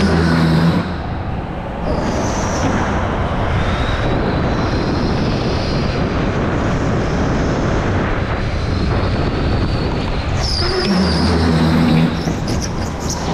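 Go-kart driven at speed around an indoor track, heard from the driver's seat: a steady rushing noise, with a faint high whine that rises slowly and a low hum that comes up briefly at the start and again near the end.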